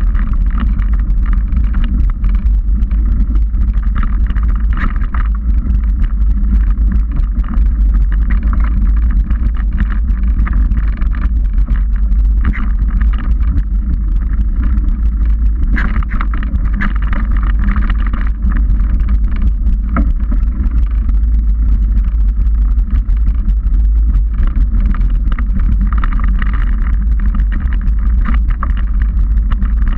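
Mountain bike riding a dirt trail, heard through an action camera: steady wind rumble on the microphone and tyre noise, with frequent small clicks and rattles from the bike over bumps.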